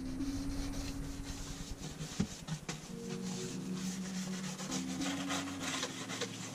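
Toilet-bowl brush bristles scrubbing wooden tongue-and-groove paneling in repeated rough strokes, working loose mold killed by white vinegar. Background music with held notes plays underneath.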